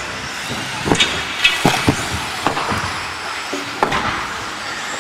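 1/10 2WD electric RC racing buggies running past, a steady motor whine and tyre hiss, with several sharp plastic knocks and clatters as cars land off the jump and hit the track, clustered about a second in and again near four seconds.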